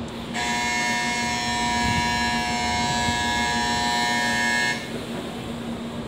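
Electric departure bell on a Shinkansen platform ringing steadily, signalling that the train is about to leave. It starts about half a second in and cuts off suddenly after about four seconds.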